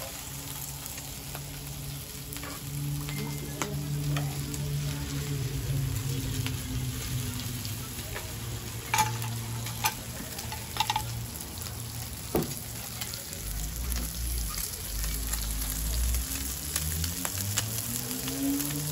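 Pork belly and sausages sizzling steadily on a round grill pan over a portable gas burner, with a few light clicks of tongs and chopsticks against the pan around the middle.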